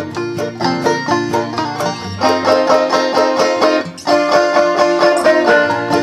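Instrumental background music made of quick runs of plucked string notes over steady chords, dipping briefly about four seconds in.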